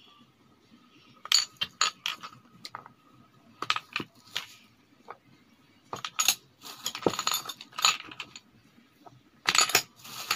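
Spice bottles clinking and knocking against each other and the table as they are gathered up and put away, in scattered clusters of sharp clicks with short quiet gaps between.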